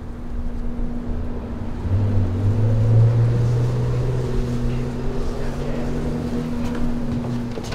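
A large engine droning low. It swells about two seconds in and eases off near the end, over a steady hum.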